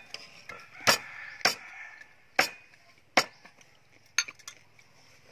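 Five sharp knocks about a second apart, each short and clean with little ringing after it.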